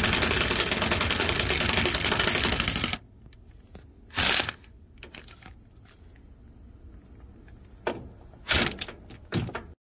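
Rapid, steady clicking of a tool spinning a 16 mm socket on a swivel to back out a crankcase filter mounting bolt. It stops abruptly about three seconds in, followed by a few short knocks and clinks of the socket and tool on the bolt.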